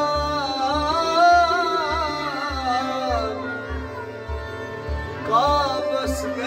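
Live Kashmiri Sufi folk music: tabla keeps a steady low beat under a long, wavering melodic phrase, and a new phrase begins near the end.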